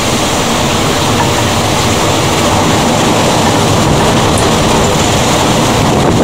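Thunderstorm at night: a steady, loud wash of heavy rain and wind buffeting the microphone, with a deep rumble underneath.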